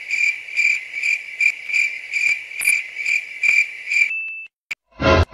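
Cricket-chirp sound effect, a steady pulsing chirp about twice a second, that cuts off abruptly about four seconds in. A sudden loud musical hit comes in just before the end.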